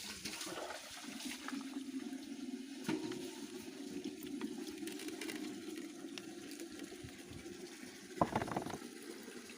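Pond water swirling and gurgling steadily as hands work through it, with a louder splash about eight seconds in.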